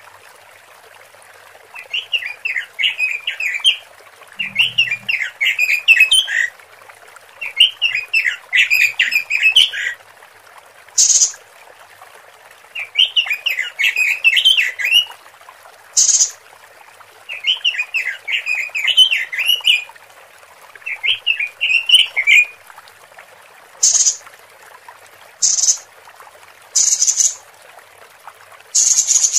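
Female Pekin robin (red-billed leiothrix) calling, the hen's call that draws males. About six bursts of fast chattering notes come a few seconds apart, each about two seconds long, with short high sharp notes between them; in the last few seconds there are only the high notes.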